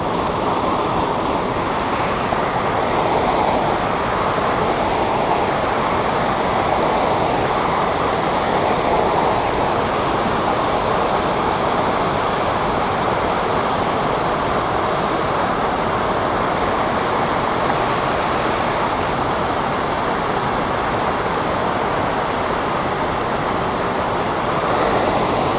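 Waterfall pouring into a creek pool: a steady, loud rush of falling water that does not change.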